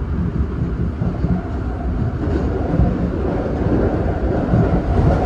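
Osaka Metro 30000-series subway train running through a tunnel: a steady low rumble of wheels and running gear.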